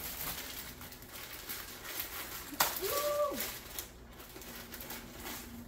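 Plastic packaging crinkling and rustling as it is handled, with a sharp snap about two and a half seconds in, followed by a short pitched sound that rises, holds and falls.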